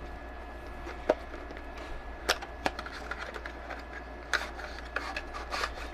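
Small cardboard product box being opened and handled: a few light taps and scrapes of the packaging as the inner tray slides out, over a faint steady hum.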